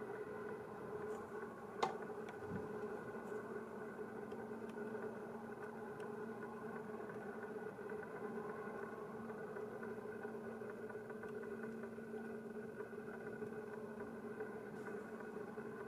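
Steady engine hum running unchanged, with one sharp click about two seconds in.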